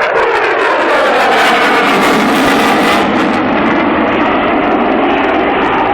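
Eurofighter Typhoon's twin EJ200 turbofan jet engines, very loud as the jet passes close by, the sound rising suddenly and then sweeping down in pitch before settling into a steady roar.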